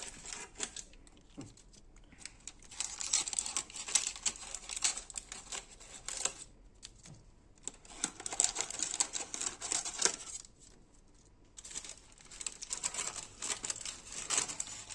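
Baking parchment paper crinkling and rustling as its edges are cut with scissors and folded down, in several spells with short pauses between.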